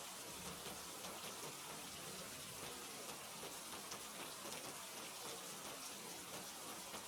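Steady rain falling, an even hiss with many small drop patters.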